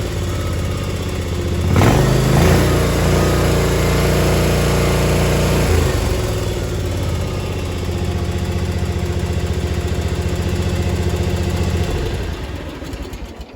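The Kawasaki FR691V V-twin gasoline engine of a Hustler Raptor SDX 54 zero-turn mower running steadily, with a clunk and a brief rise in the engine note about two seconds in. Near the end the engine note dies away.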